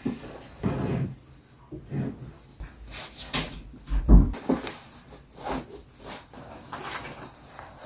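Clothes and a drawstring bag being pulled from cardboard boxes and shaken out: irregular rustling and flapping of fabric and cardboard, with a dull thump about four seconds in.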